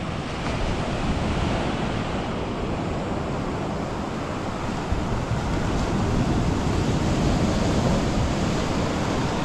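Ocean surf washing onto a beach, with wind buffeting the microphone; the wash grows louder about halfway through.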